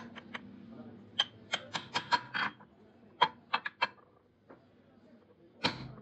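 Steel crankshaft parts and a steel drift clinking against each other and against a steel fixture plate during motorcycle crank assembly. Sharp metallic taps come in a bunch between about one and two and a half seconds in, again around three to four seconds, and the loudest near the end.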